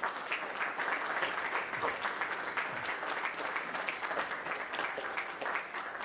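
Audience applauding, many hands clapping.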